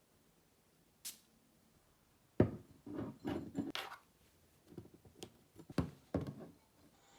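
A brief hiss about a second in, then a run of irregular knocks and thuds, the first the loudest, as of objects being handled and set down in a small room.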